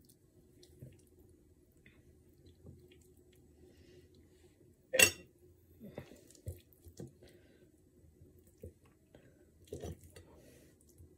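Cooked chicken being pulled off the bone by hand: faint wet squelching and small clicks, with one sharper knock about five seconds in and a few smaller knocks after it.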